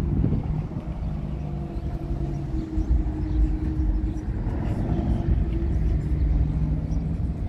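A vehicle engine running with a steady low hum over a rough low rumble.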